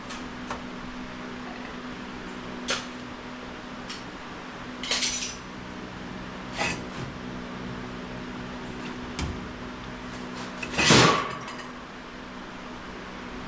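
Scattered light metallic clanks and knocks of sheet metal and shop tools being handled, with a louder clatter about eleven seconds in, over a steady low hum.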